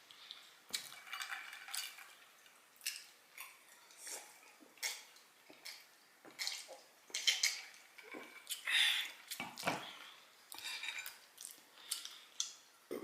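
Cutlery clinking and scraping against a dinner plate in short, irregular strokes as food is picked up off it.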